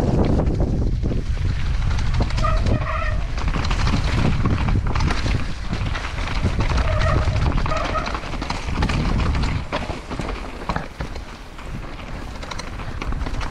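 Downhill mountain bike ridden fast down a dirt trail, heard from a helmet-mounted action camera: wind buffeting the microphone, tyres rolling over dirt and roots, and the bike's frame and chain rattling with sharp knocks. The wind rumble eases somewhat after about nine seconds. Two short faint calls sound about three and seven seconds in.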